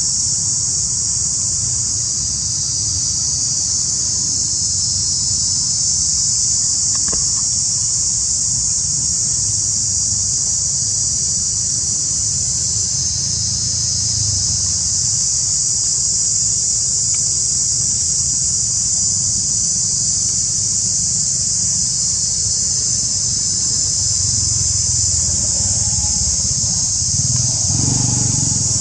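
Steady, high-pitched chorus of buzzing insects, with a steady low rumble beneath.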